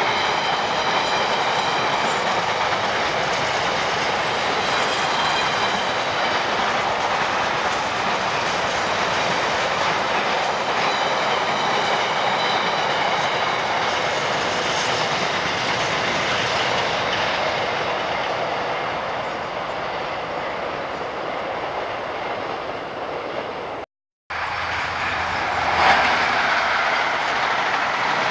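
Freightliner container train's wagons rolling past with a steady clickety-clack over the rail joints and a high, thin wheel squeal, easing off after about two-thirds of the way through. After a brief dropout near the end, a loco-hauled passenger train is heard passing.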